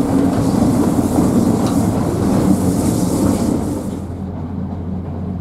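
Narrow-gauge passenger train running, heard from aboard: a steady rumble of the carriage on the rails with a few wheel clicks. A high rushing hiss drops away about four seconds in.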